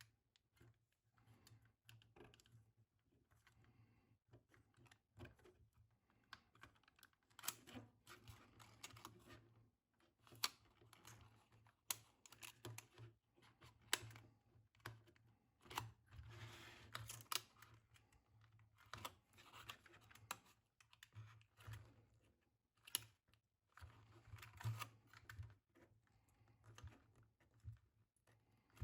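Faint, scattered clicks and taps of hands handling an opened IBM Model M keyboard while its flat flex cables are plugged into a replacement controller board, over a faint low hum.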